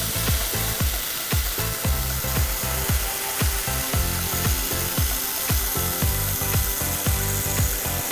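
Background music with a steady electronic beat, over a steady hiss from a portable metal-cutting band saw whose blade is cutting through a steel knife blank.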